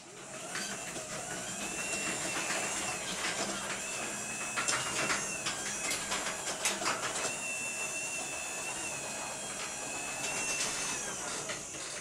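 Chamberlain WD962KEV belt-drive garage door opener running as it closes a sectional garage door. A steady motor-and-drive hum is joined by a high squeal that comes and goes and by occasional clicks and clunks from the moving door.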